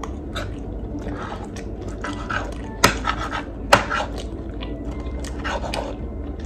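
Metal spoon scraping and clinking against a plate as food is scooped up, with two sharp clinks about a second apart near the middle.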